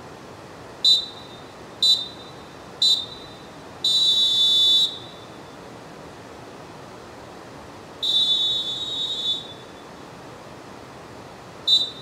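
Molten Dolfin Pro pealess referee whistle blown in a pattern: three short sharp blasts about a second apart, then two long blasts of about a second each, then one more short blast near the end. Each blast is a single high shrill tone over a steady background hiss.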